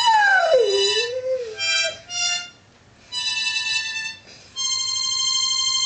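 Harmonica played in held chords broken by short gaps, the last chord held steady from about halfway through. At the start a dog's long howl slides down in pitch over the chord.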